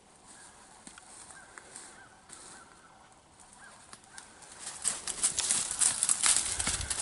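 Crunching and rustling in dry leaf litter and bare saplings, as someone pushes through the brush on foot, starting about five seconds in and quickly getting loud. Before that, a few faint bird chirps.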